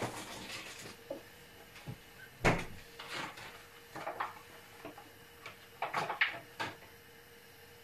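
Scattered knocks, clicks and short rustling clatters of someone handling things in a kitchen, the loudest a single knock about two and a half seconds in.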